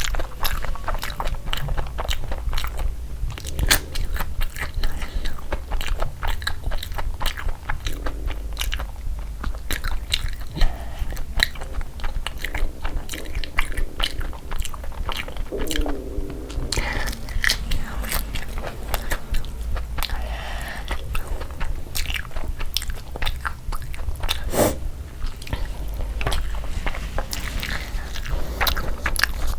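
Close-miked eating: chewing and biting, with frequent crisp crunches and wet mouth clicks, over a steady low hum.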